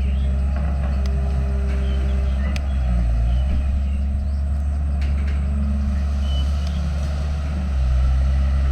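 Heavy diesel engine of an earthmoving machine running steadily under load, a deep drone with light clanks and squeaks from the working machine.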